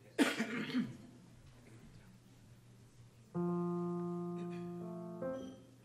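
Piano chord struck and left to ring and fade for about two seconds, then a second brief chord, sounded before the chorus sings: starting pitches for the singers. A short loud burst of sound comes just before it, near the start.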